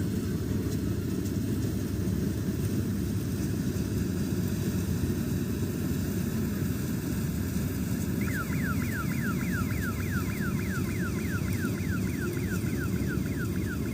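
Malkit 997 combine harvester running steadily with a deep, even drone. About eight seconds in, a rapid series of short falling chirps, about four a second, starts up over it.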